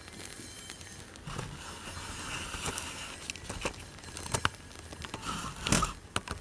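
Small fire of fatwood shavings burning, with irregular crackles and snaps, and one louder knock near the end.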